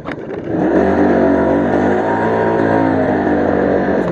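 Motorcycle engine picking up revs about half a second in and then running steadily under throttle, heard from the rider's seat.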